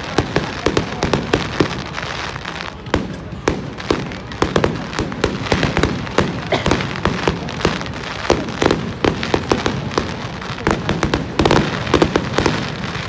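Fireworks display going off: a dense, irregular run of sharp bangs and crackling reports, many per second, overlapping one another.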